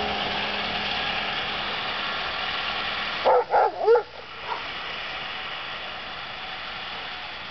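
Snowmobile engine running steadily as it pulls away, dropping off sharply about three seconds in and staying faint afterwards. Just as it drops, a Bernese Mountain Dog gives three quick, whiny barks.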